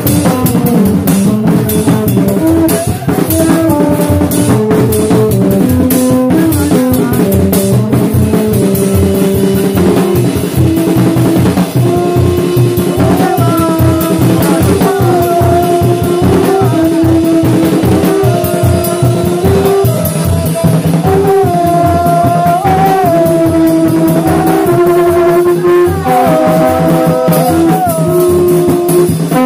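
Haitian rara band music: busy, driving drumming with long metal tin trumpets (kònè) blowing held notes that step between a few pitches, loudest in the second half.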